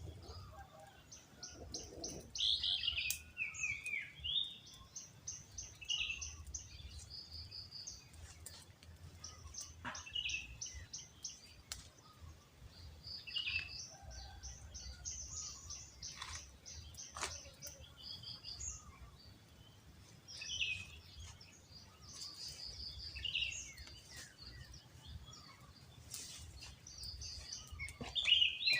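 Several small birds calling: rapid series of high, evenly spaced notes and short calls that fall in pitch, repeating throughout. A low rumble runs underneath, with a few sharp clicks.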